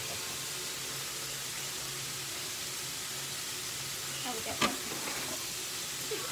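Ground meat and eggs sizzling steadily in a frying pan, over a low steady hum. A sharp knock sounds about four and a half seconds in and another near the end, as an egg is rapped on the pan's edge to crack it.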